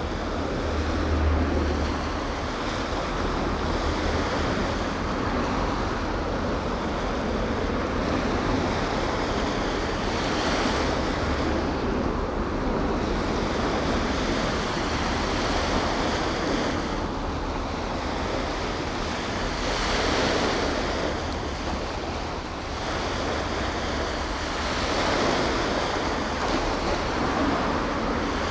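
Outdoor wind rushing over the microphone with low gusty rumbles, over a steady wash of harbour water.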